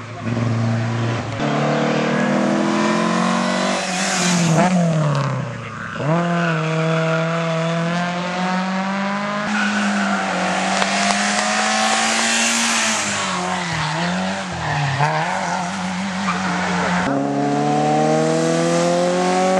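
Race car engines revving hard on a hillclimb, their pitch repeatedly climbing as they accelerate and dropping at each gear change or lift.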